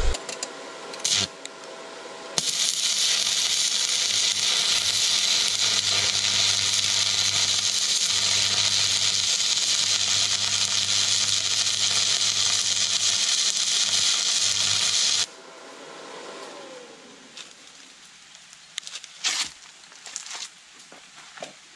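SUZUKID WELD-ON140 stick arc welder burning a mild-steel rod: after a brief strike about a second in, the arc crackles and hisses steadily over a low hum. It cuts off suddenly about two-thirds of the way through as the workshop's 30 A breaker trips under the welding load, followed by a short falling whine and a few faint knocks.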